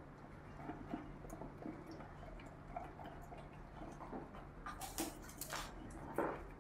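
A dog eating radishes and their leafy greens from a plastic bowl: irregular chewing with small clicks, and a few louder crunches around five and six seconds in.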